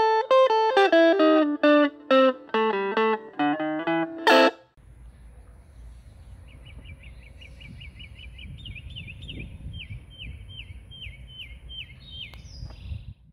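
Outro music of picked electric guitar notes, ending on a chord about four seconds in. Then wind rumbles on the microphone while a bird gives a long series of rapid, repeated high chirps that slow toward the end.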